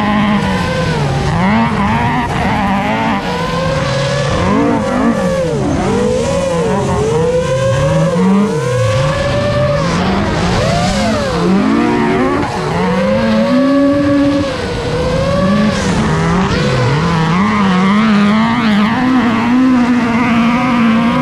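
FPV racing quadcopter's motors and propellers whining loudly, several pitches at once swooping up and down every second or so as the throttle changes.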